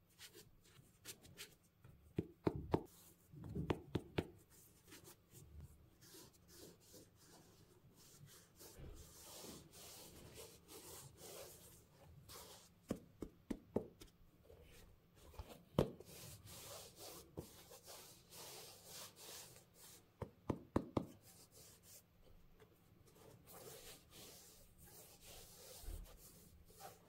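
White cotton-gloved hands handling a pebbled-leather sneaker: soft rubbing and brushing of glove on leather, with scattered light taps and clicks as the shoe is turned and gripped.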